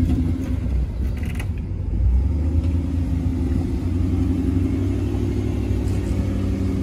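Off-road vehicle engine running at steady revs under load in deep mud, with a low rumble.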